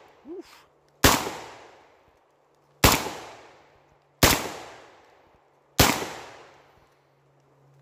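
Four shots from a JTS semi-automatic 12-gauge shotgun firing Winchester birdshot, about one and a half seconds apart, each with a fading echo. The gun cycles every round without a jam.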